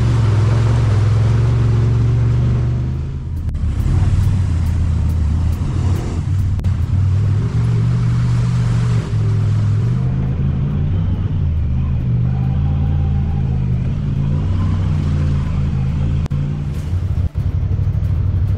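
Side-by-side UTV engine running under load on a trail ride, its pitch rising and falling with the throttle. It dips briefly about three seconds in.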